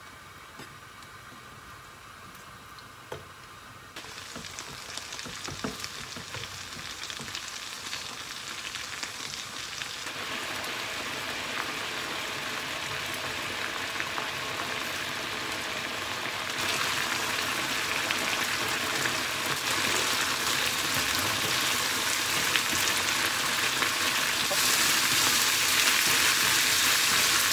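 Canned mackerel sizzling in a frying pan as its soy sauce, mirin, sake and sugar sauce boils down, the sizzle growing louder in steps as the liquid reduces. A wooden spatula stirs through it, with a few light taps on the pan near the start.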